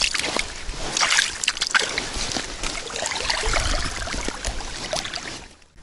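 Water splashing and trickling at the river's edge, a steady wash broken by many small irregular splashes, cutting off abruptly near the end.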